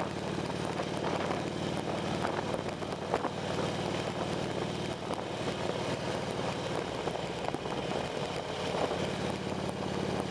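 An engine running steadily, a low even drone with a faint hiss over it.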